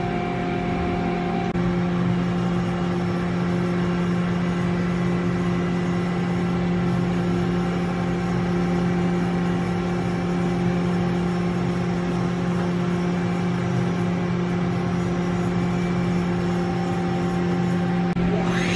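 Mori Seiki NH4000 DCG horizontal machining centre running under power: a steady machine hum made of several held tones over a mechanical hiss. A brief rising whine comes right at the end.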